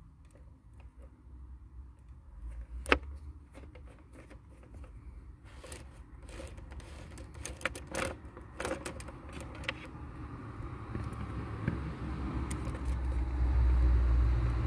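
Light clicks and scrapes of a T25 Torx screwdriver and fingers working a screw out of a plastic steering-column cover, with one sharper click about three seconds in and a flurry of small clicks a little later. A low rumble builds over the last few seconds.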